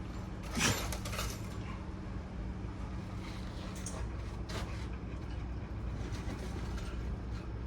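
Steady low mechanical hum, with a sharp clink about half a second in and a few faint ticks later.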